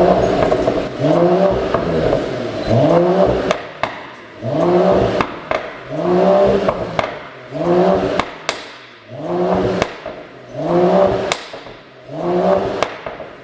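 Mercedes-AMG CLS53's turbocharged 3.0-litre inline-six blipped again and again, about once every second and a half, each rev rising and falling away. Sharp pops and crackles from the exhaust follow each blip as the revs drop: the overrun pops of a pop-and-bang tune.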